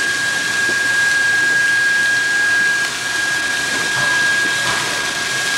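Steady rushing hiss of steam venting from a California Western steam locomotive standing at a water tower, with a thin steady high tone over it.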